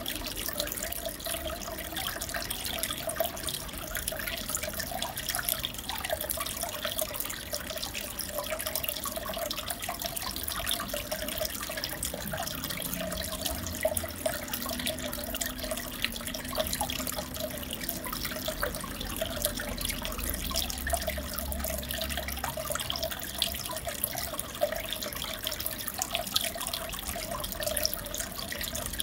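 Aquarium water circulating: a steady rush of splashing, bubbling water with many small pops and crackles.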